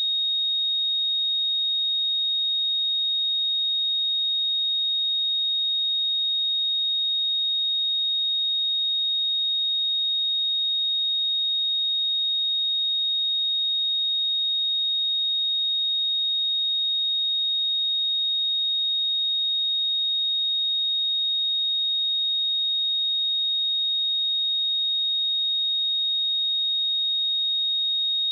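A pure 3735 Hz sine-wave test tone, one steady high-pitched whistle at constant level with no change in pitch.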